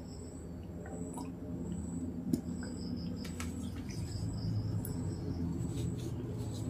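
A glass tumbler set down on the table with one sharp knock about two seconds in, over faint steady insect chirping and a low hum.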